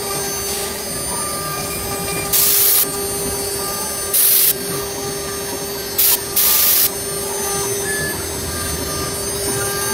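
STYLECNC STM1325-R1 CNC router spindle running with a steady whine while its bit carves EVA foam. Four short, loud bursts of hiss break in, at about two, four, six and six and a half seconds in.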